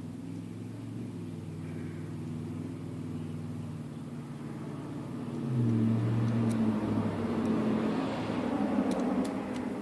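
An engine running, its pitch shifting and growing louder about halfway through, with a few sharp clicks near the end.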